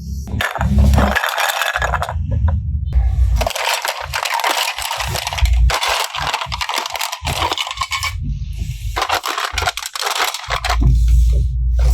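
Slime being squished and kneaded by hand, a dense run of crackling and popping in several stretches with brief pauses, with soft low squelches between them.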